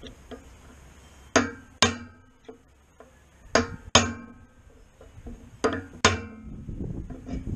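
Hammer striking a punch to tap a new bearing into a disc harrow's bearing housing, working it in a little at a time: three pairs of sharp metallic strikes, each ringing briefly, the pairs about two seconds apart.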